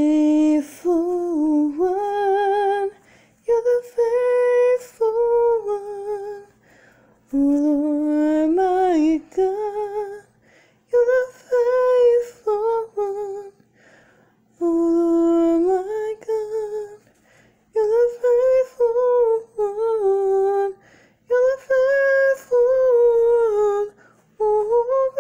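A woman singing solo and unaccompanied: a slow melody in held phrases of two to three seconds, with short pauses between them.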